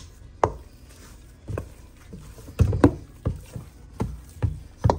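A spoon beating thick churro dough by hand, a wet thud or slap with each stroke, about eight unevenly spaced strokes; the eggs are being worked into the cooked flour paste until the dough is smooth.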